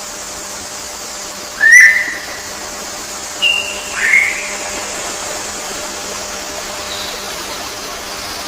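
Bird whistling three short notes over a steady high hiss. The loudest note bends up then down about two seconds in, followed by a short higher note and another curved note a couple of seconds later.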